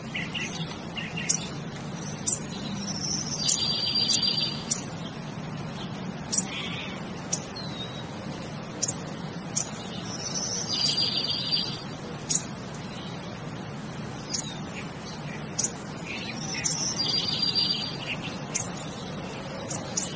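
Birds chirping, with a buzzy trill recurring about every seven seconds over a steady low hum.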